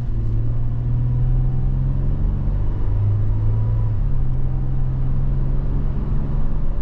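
2024 Toyota 4Runner's 4.0-litre V6 pulling the SUV away from a stop, a steady low engine drone with road noise under it. The engine note changes about four seconds in.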